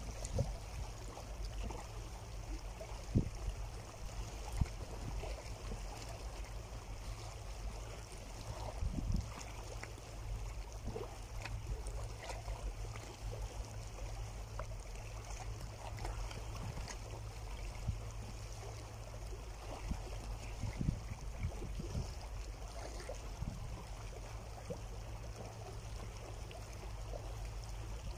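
Small sea waves lapping and washing over shoreline rocks, a steady wash with a low rumble underneath and a few soft thumps.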